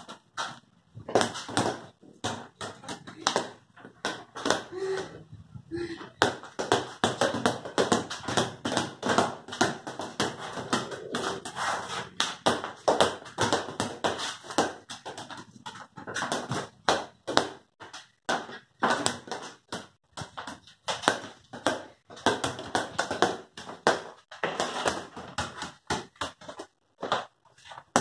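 A small rubber ball being kicked and bouncing on a concrete floor, irregular thuds several times a second mixed with quick footsteps, ringing slightly in a small walled space.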